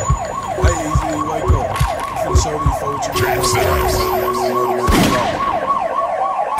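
A siren-like wail from a hip-hop track: the pitch sweeps up and down several times a second over deep, booming drum hits. A sharp hit comes about five seconds in.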